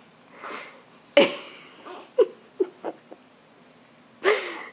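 A toddler squealing and giggling from inside a cabinet: a louder squeal about a second in, three short chirps a little later, and another louder, falling squeal near the end.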